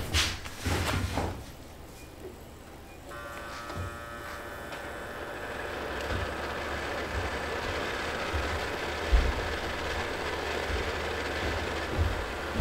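A few knocks near the start, then a bathroom ventilation fan switched on about three seconds in: its motor starts with a hum and whine that builds over a few seconds into a steady whir. It is blowing through an undersized 3-inch vent duct, which adds resistance on the motor, yet it runs pretty quiet.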